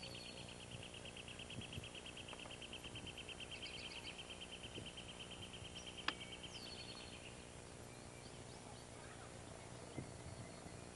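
Quiet woodland ambience: a long, rapid, even trill holds on one pitch until about seven seconds in, with short bird chirps over it. A single sharp click comes about six seconds in.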